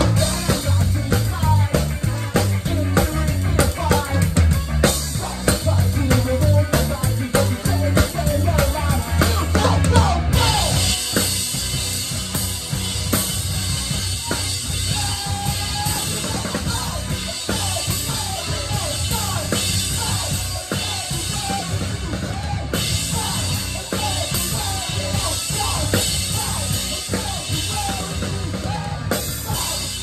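A live band playing, with the drum kit loud and close: kick, snare and cymbals over the rest of the band. About ten seconds in the heavy low end drops back, and near the end the music winds down.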